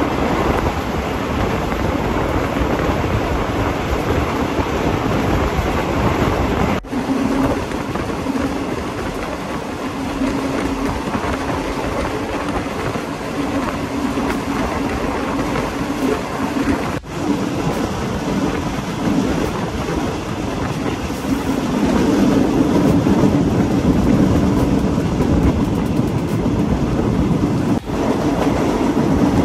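Moving passenger train heard from inside a third-class carriage: a steady rumble and rattle of wheels on the rails, with a low steady hum. The sound drops out briefly three times.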